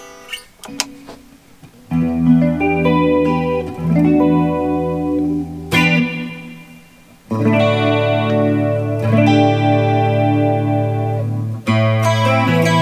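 Monoprice Indio Retro Classic Tele-style electric guitar being played. A few light string plucks come first, then strummed chords that are left to ring. After a short lull in the middle, louder chords are struck about every two seconds.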